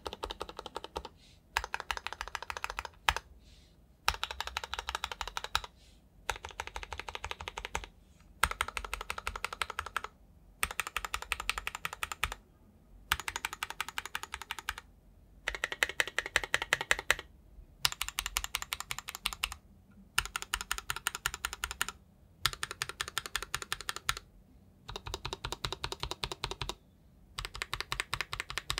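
KBDFans 5 Degree mechanical keyboard with SP-Star Meteor White switches being typed on quickly, in runs of rapid keystrokes lasting a second or two with short pauses between them.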